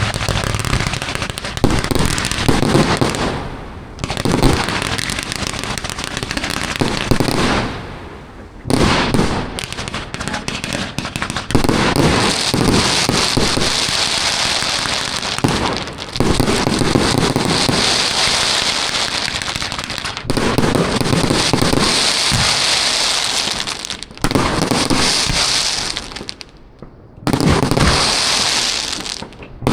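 Multi-shot consumer fireworks cake of 20, 25 and 30 mm tubes firing in rapid, unbroken volleys of shots and bursts. It stops briefly every few seconds between sections, and from about twelve seconds in a dense high crackle rides over the shots.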